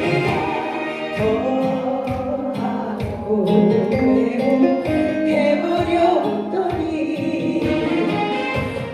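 Trot song on a backing track with a steady beat, with singing over it.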